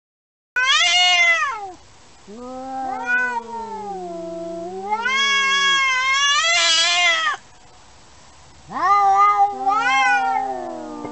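A cat yowling: a string of long, wavering, drawn-out calls that rise and fall in pitch, starting abruptly about half a second in, with a short break about two seconds in and a longer one about three quarters of the way through.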